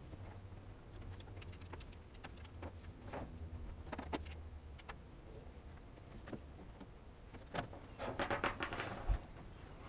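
Scattered light metallic clicks and clinks of hand work on a metal oil pressure gauge line and its fittings. A quick rattling run of clicks comes near the end.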